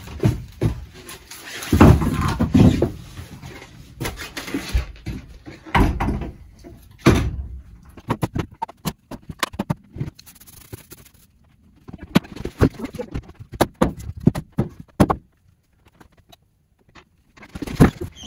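Split firewood logs being carried in and set down by a wood stove: an irregular string of wooden knocks, clunks and thuds with footsteps on the cabin floor, and a quieter spell shortly before the end.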